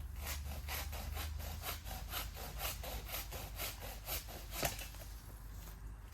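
Hand saw cutting through a cherry tree's trunk in quick back-and-forth strokes, about four a second, which stop after about four and a half seconds.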